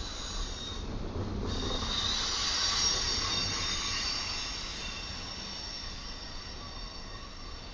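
Double-stack intermodal freight cars rolling past over a steady rumble, their wheels squealing in several high steady tones. The squeal swells about a second and a half in and slowly fades.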